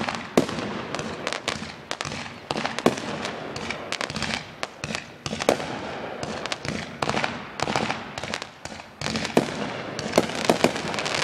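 Consumer aerial fireworks going off: many sharp bangs and pops at irregular intervals as shells burst overhead, with a dense crackling building near the end.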